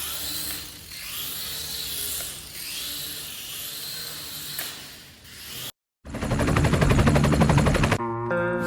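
A hissy, whirring mechanical noise, then after a brief dropout a loud, fast rattle lasting about two seconds, and music starting near the end.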